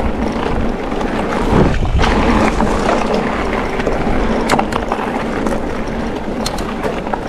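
Specialized Levo electric mountain bike's tyres rolling over a gravel trail, a steady crunching rumble mixed with wind on the microphone. There is a heavier thump about a second and a half in, and a few sharp clicks and knocks from the bike over bumps later on.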